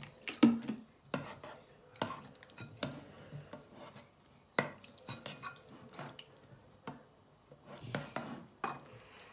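Metal spoon stirring thick homemade slime in a bowl, knocking and scraping against the bowl in irregular strokes, loudest about half a second in. The activator has just been added and the slime is starting to clump.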